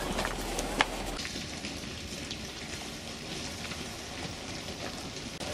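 SUV tyres rolling slowly over loose gravel and rocks: a steady crunching hiss with a sharp click just under a second in.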